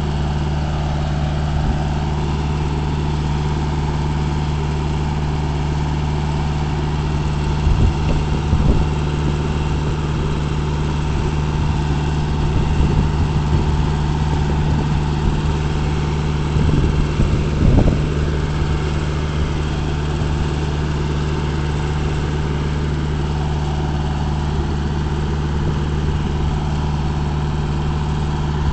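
Steady drone of a vehicle's engine on the move, with a few brief louder bumps about eight and seventeen seconds in.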